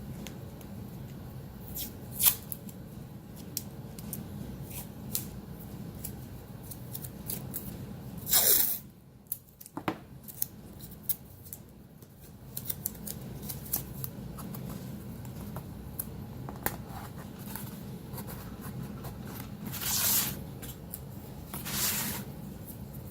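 Painter's tape being pulled off the roll and torn into short pieces: three louder short rasps, one about a third of the way in and two near the end, among scattered light clicks and taps of handling.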